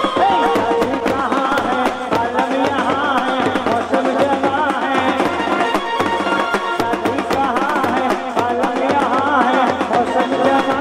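Indian music: fast tabla drumming under a melody line that wavers and bends in pitch.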